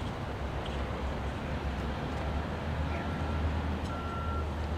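Rocky Mountaineer passenger train rolling past: a steady low rumble of the coaches' wheels on the rails. A faint thin high tone comes and goes in the second half.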